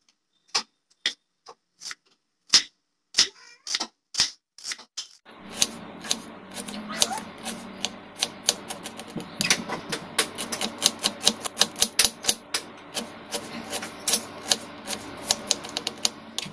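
Kitchen knife chopping a red onion on a wooden cutting board: slow, separate knocks as the onion is sliced, then a fast run of chopping taps, several a second. A steady background hum comes in about five seconds in.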